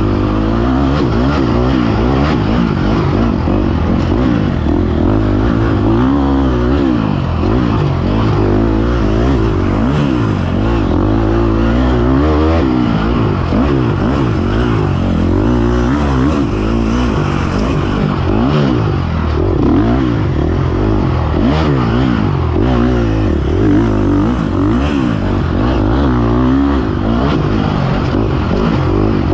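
Dirt bike engine revving hard, heard from on board, its pitch climbing and dropping again and again as the throttle is worked through the turns of a woods trail.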